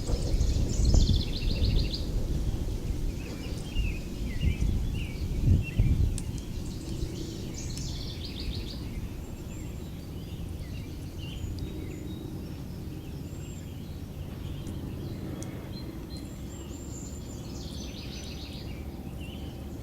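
Outdoor songbirds singing short, repeated trilling phrases several times, over a low, uneven rumble that is heavier in the first six seconds and then settles to a steady low background.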